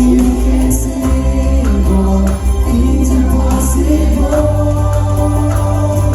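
Live church worship band music: a heavy sustained bass that changes note about a second in and again later, held chords, and bright cymbal accents now and then.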